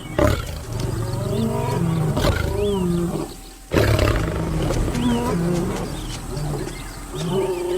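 Male lions roaring, a string of deep roars broken by a brief pause about three and a half seconds in.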